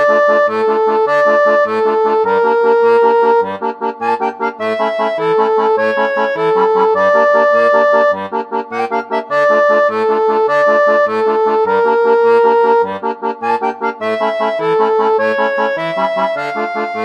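Lively background music: a melody with held notes over a steady, regularly repeating bass beat.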